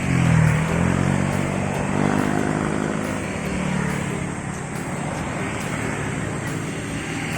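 A road vehicle's engine going by, loudest about half a second in, then running on steadily.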